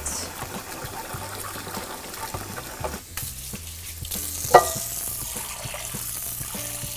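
Wooden spoon and sponge scraping and scrubbing the inside of an enameled cast iron skillet in warm soapy water, removing burnt-on residue. A single sharp knock comes about four and a half seconds in.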